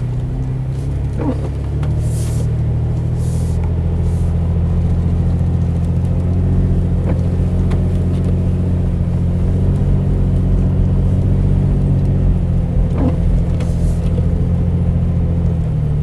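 Toyota FJ Cruiser's 4.0-litre V6 engine pulling steadily under load up a steep snow-covered hill. Its note shifts slightly about a second in and again near the end. A few short hissing bursts come in the first few seconds and once near the end.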